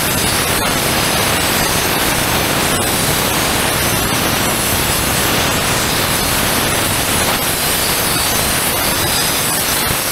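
Compressed-air diesel spray gun washing down a tractor engine block: a loud, steady hiss of air and spray that stops abruptly at the end.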